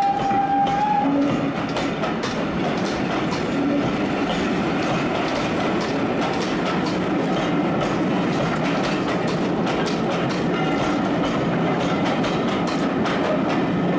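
Steam-hauled train of passenger coaches behind BR Standard Class 9F No. 92214 rolling past close by: a steady rumble with the wheels clicking over the rail joints. A single steady steam whistle note cuts off about a second in.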